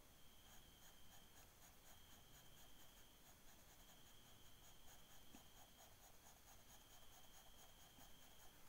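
Graphite pencil scratching faintly on paper in quick, repeated short strokes as lines and shading are drawn. A steady, faint high-pitched whine sounds underneath.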